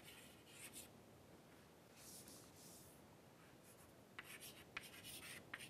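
Chalk writing on a chalkboard: faint scratching strokes, a longer scratch about two seconds in, then a run of quick strokes and taps from about four seconds in.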